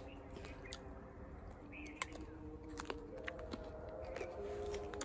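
A person bites into a crisp, unripe jujube (Indian plum) and chews it, giving a few sharp crunches. Faint steady tones carry on in the background.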